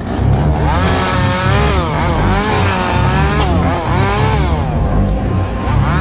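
Chainsaw engine revving again and again, its pitch swooping up and down, over a heavy low rumble.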